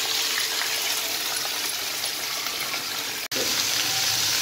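Mixed chopped vegetables sizzling in hot oil in a kadai, a steady hiss that cuts out for an instant about three seconds in.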